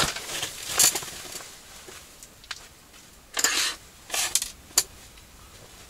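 Several brief rustles and light knocks of hands handling a cloth rag and fishing gear, including a short sharp click near the end.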